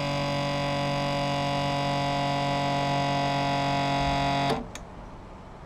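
Electric hydraulic pump motor running with a steady hum to recharge the accumulator after the pressure switch cuts in; it stops suddenly about four and a half seconds in.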